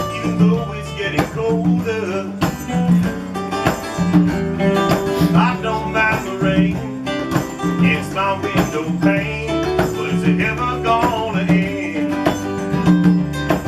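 Live band playing the instrumental intro of a country-style song: guitar over a steady, evenly paced bass line, with a lead line of bending notes.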